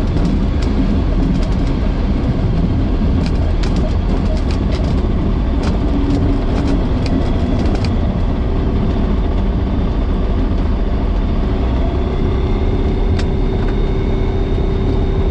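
Skyranger microlight's Rotax 912 flat-four engine idling with the propeller turning as the aircraft rolls out on a grass strip after landing and slows almost to a stop. The undercarriage rattles and knocks over the bumpy grass for the first half. A steadier engine note comes through as the roll slows.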